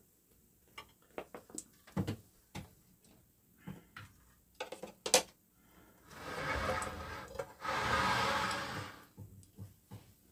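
Cooking-utensil handling: metal tongs clicking and knocking against a frying pan and plates, with a sharp click about five seconds in. This is followed by two rough, noisy stretches of about a second and a half each.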